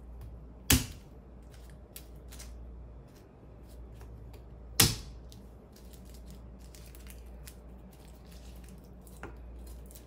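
Two sharp whacks about four seconds apart as garlic cloves are crushed under a kitchen knife on a plastic cutting board, with faint clicks of the cloves being peeled and handled in between and a lighter knock near the end.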